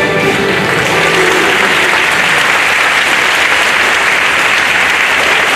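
Audience applauding at the end of a dance number. The last notes of the music fade out over the first two seconds, leaving steady, loud clapping.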